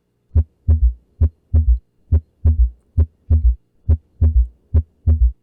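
Heart sounds with a third heart sound (S3, ventricular gallop): each beat is a single thump followed by a close double thump, the extra knock coming just after the second heart sound. The three-beat gallop repeats a little slower than once a second. In adults a heard S3 is as a rule a sign of pathology, such as volume overload in congestive heart failure or severe atrioventricular valve regurgitation.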